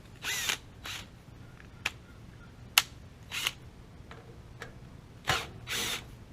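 Cordless drill run in short bursts of a fraction of a second each, about five in all, with two sharp clicks in between, the sharper one about three seconds in. The drill is worn out: about shot.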